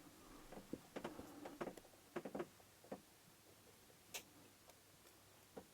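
Faint, irregular clicking and scraping of a lock pick and tension tool working the pins of a challenge lock, with a sharper click about four seconds in.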